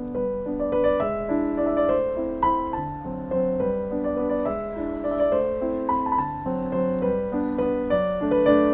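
Background piano music: a flowing melody of single notes over lower notes that change every second or so.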